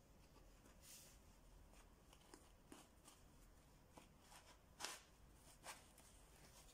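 Faint handling noise of a folding bicycle multi-tool being pushed into a fabric pouch: light clicks and short fabric scrapes, the two loudest scrapes a little before five seconds and near six seconds in.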